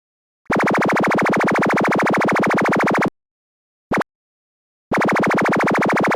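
Synthesized sci-fi stun gun sound effect: two long, rapidly pulsing electric buzzes of about two and a half seconds each, with a short blip between them about four seconds in.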